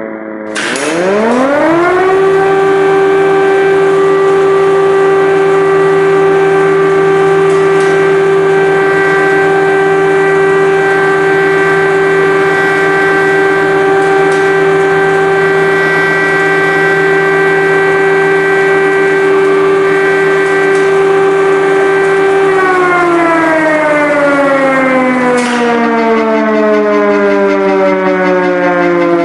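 Air-raid siren winding up over about two seconds to a steady, loud wail, holding that pitch for about twenty seconds, then slowly winding down near the end. It is an air-raid alert, the warning to take shelter from an air strike. A lower steady tone runs beneath it throughout.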